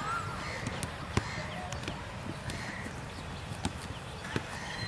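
A football being kicked back and forth in a passing drill on grass: scattered, irregular thuds, with faint distant voices.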